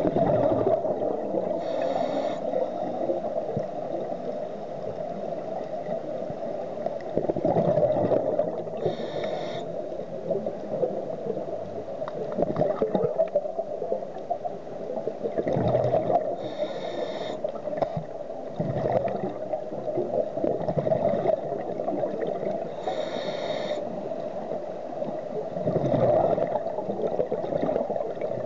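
Scuba regulator breathing underwater: slow breaths several seconds apart, each with a hissing draw and a gurgling rush of exhaled bubbles, over a steady underwater hiss.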